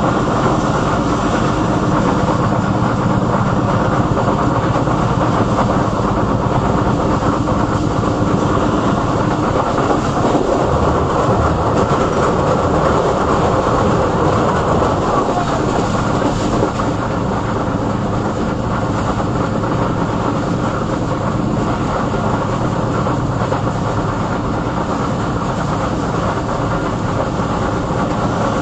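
Passenger train coach running at speed, heard from the rear of the train: a steady wheel-on-rail rumble with clickety-clack. The rumble changes around the middle, where the train crosses a short bridge.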